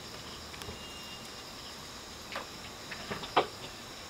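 Steady high-pitched chirring of crickets and other insects, with a few short clicks and scrapes about two and a half and three and a half seconds in, the last one the loudest.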